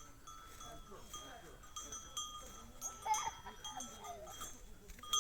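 Sheep bleating, the loudest calls about three seconds in, with the light ringing of bells worn by the flock.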